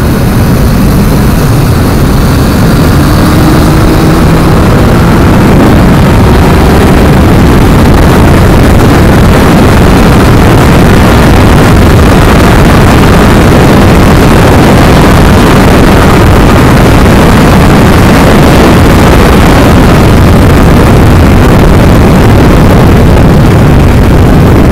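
Yamaha MT-09 motorcycle riding at speed: heavy wind noise on the bike-mounted microphone, loud and steady, with the inline-three engine's note faint beneath it.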